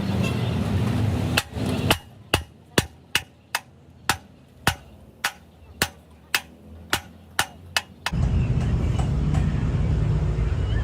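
About fourteen hammer blows, a sharp strike roughly every half second, during truck repair work. A steady low rumble runs before the blows and starts again suddenly after them.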